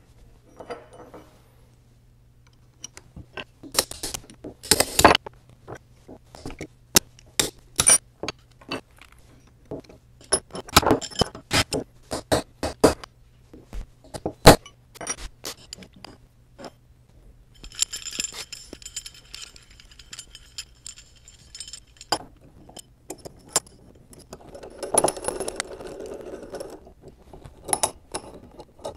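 Ball-peen hammer striking the Monroe calculator's digit-wheel shaft, stood upright on a rod, to knock its stuck digit wheels off. About a dozen sharp metallic knocks come at uneven spacing over roughly ten seconds. These are followed by a few seconds of metal parts clinking and jangling, and then scraping as the parts are handled.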